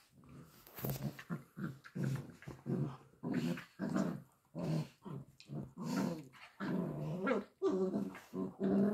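Dogs play-growling while wrestling: a rapid run of short growls, about two a second, some of them bending up and down in pitch.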